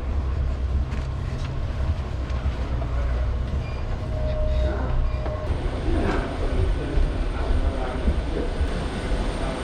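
Steady low mechanical rumble with faint background voices. A thin, high steady whine comes in about halfway through.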